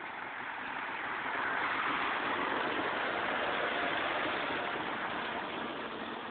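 Pipe-wrapping machine for Polyken tape running with a steady whirring noise that swells a little in the middle.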